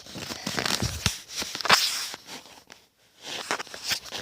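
Rustling and handling noise close to the microphone, in several short uneven bursts.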